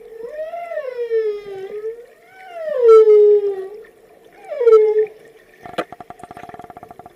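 Recorded whale vocalizations: three pitched calls that rise and fall, the second the loudest, followed near the end by a rapid train of clicks.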